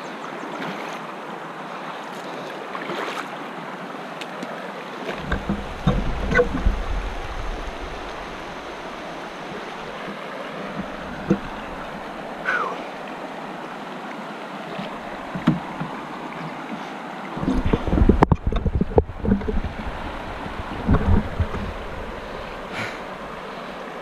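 Water rushing steadily over rocks in a shallow, fast stream. Bursts of low rumbling and knocking come about five seconds in and again for a couple of seconds later on.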